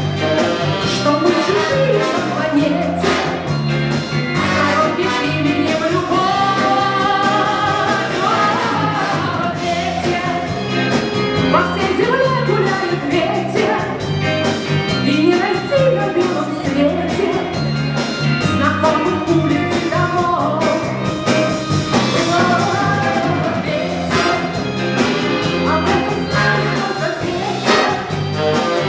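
A woman singing a pop-jazz song live, backed by a big-band orchestra with bass and drums keeping a steady beat.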